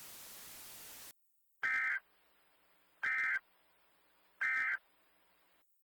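Emergency Alert System End of Message code: three short, identical bursts of SAME digital data tones, about a second and a half apart, marking the end of the warning broadcast. A faint hiss runs beneath the first second and then cuts off.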